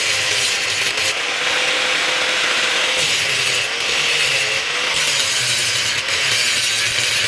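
A power tool working on steel: a continuous rasping noise with a motor tone that wavers as the load changes.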